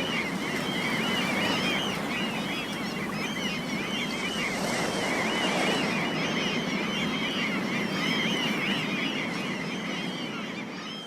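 A flock of seagulls calling constantly, many short overlapping cries, over the steady wash of sea waves. It all fades out near the end.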